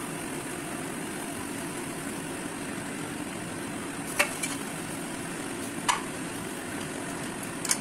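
A spatula stirring bread cubes in a frying pan, knocking sharply against the pan three times, about four seconds in, about six seconds in and near the end, over a steady hiss.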